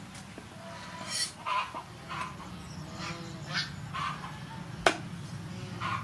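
A knife working a sea fish on a wooden chopping board: a run of short scraping strokes, and one sharp knock of the blade on the board about five seconds in.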